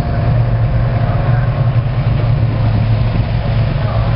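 Several Porsche 911 GT3 Cup race cars with flat-six engines running at low speed in a line, a steady low engine drone.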